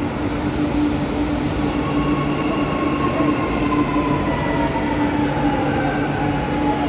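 Electric metro train coming in along the platform: a steady rumble and hum, with a whine that slowly falls in pitch as it slows, and a hiss in the first couple of seconds.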